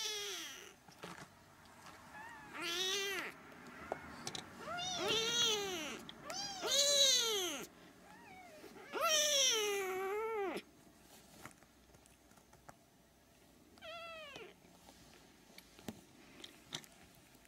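Siamese kittens meowing: about six separate meows that rise and fall in pitch, coming close together in the first ten seconds, then one short meow a few seconds later.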